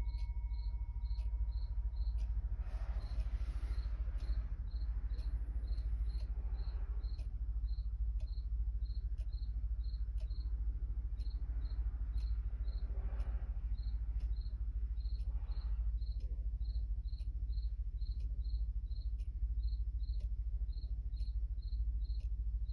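Chelsea Shipstrike quartz ship's clock ticking steadily, about twice a second. The last of its single bell strike rings away during the first two seconds.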